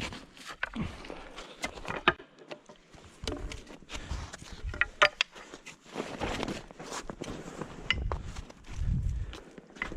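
Footsteps crunching on frozen snow, with scattered sharp clicks and knocks. The steps grow heavier near the end.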